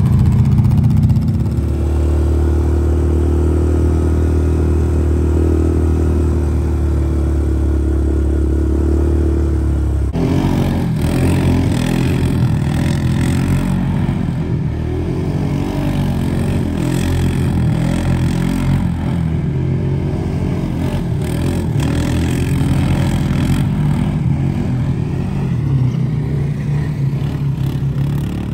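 ATV engines running steadily, then, after a sudden change about ten seconds in, quad engines revving up and down as the machines spin circles in loose sand.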